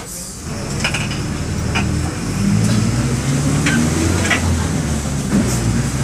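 Mercedes-Benz OM-924 LA four-cylinder inline diesel of an OF-1722M bus, recorded on board, running under load and getting louder about half a second in. A few sharp clicks and rattles sound over the engine.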